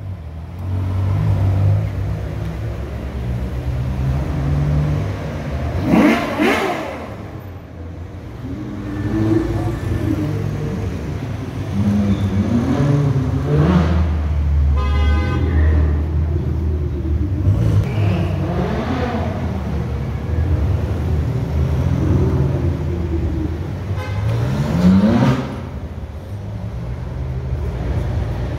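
Ferrari sports car engines rumbling as the cars roll past slowly, the throttle blipped into a rising rev several times. A car horn sounds once, about fifteen seconds in.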